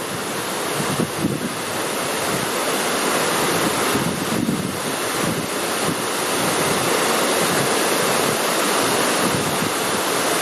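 Waterfall's falling water: a steady, heavy rush, with wind buffeting the microphone.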